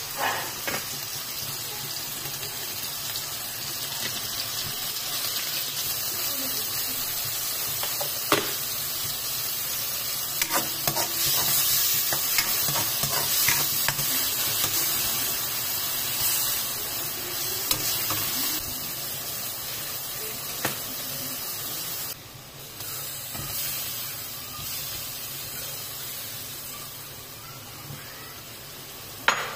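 Onions, tomatoes and garlic sizzling in hot oil in a frying pan, a steady hiss with scattered small clicks. A couple of sharp knocks near the end.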